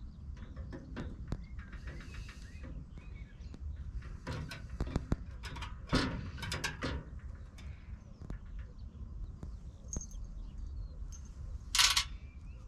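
Small clicks, scrapes and rustles of hands working a headlight unit and its rim into a Land Rover's front grille panel, with a louder clatter near the end. Birds chirp faintly in the background.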